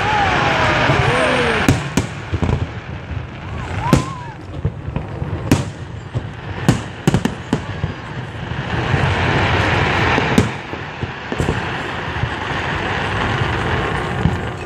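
Aerial fireworks shells bursting close overhead: about a dozen sharp bangs at uneven intervals, with a rushing noise swelling between them near the start and again around ten seconds in.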